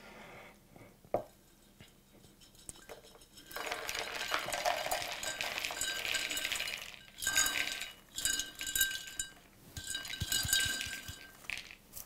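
Popcorn and loose unpopped kernels poured from a glass microwave corn popper into a plastic bowl: a rustling, rattling pour that starts a few seconds in, followed by three shorter bursts as the popper is shaken out.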